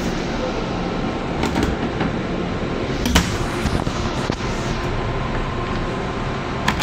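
Metro-North M3 railcar running: a steady low rumble inside the car, with a few sharp knocks and rattles, the loudest about three seconds in.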